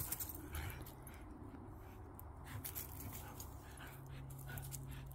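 A husky and another dog playing together, giving faint soft whimpers among small scattered scuffling sounds, over a steady low hum.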